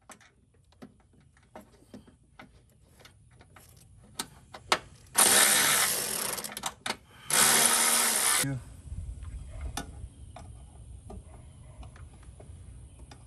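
Light scattered clicks as the brake booster's lower mounting nuts are worked on. Then, near the middle, two loud bursts of about a second each from a cordless power tool running the nuts down, followed by a few more clicks.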